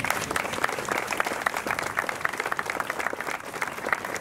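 A crowd applauding, many hands clapping at once.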